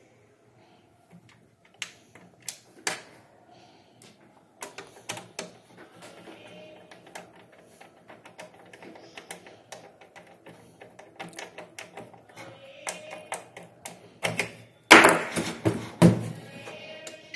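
Small clicks and ticks of a hand screwdriver driving screws into the plastic case of an APC Back-UPS, with light plastic rattles. Near the end come a few loud knocks as the case is handled and set on the table.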